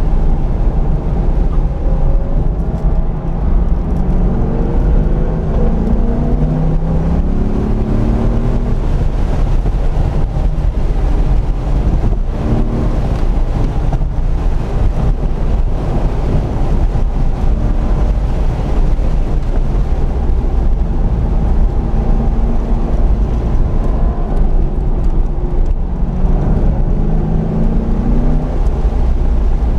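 Chevrolet Corvette C5 Z06's LS6 V8 heard from inside the cabin while lapping a race track, its revs climbing in several pulls and dropping back between them, over a constant low rumble.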